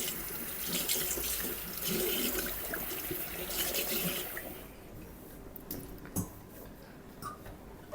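Water running from a tap into a sink, shut off about four and a half seconds in, followed by a few light knocks.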